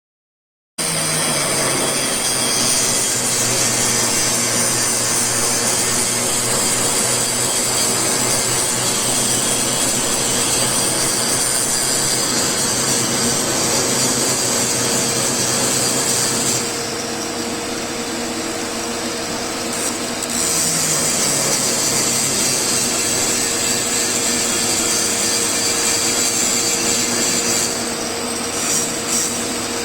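TIG welding arc at about 120 amps, a steady hiss and electrical buzz with a mains hum. It eases off for a few seconds near the middle, then comes back.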